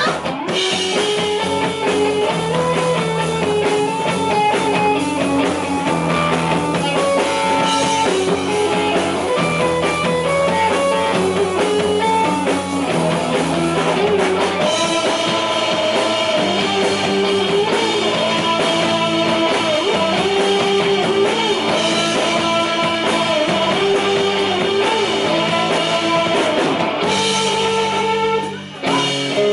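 Rock band playing live: electric guitar and bass guitar over a drum kit, with a short drop in loudness near the end.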